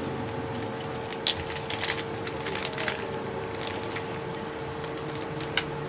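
A steady electrical hum with one constant tone, broken by a few light clicks and taps of small parts being handled.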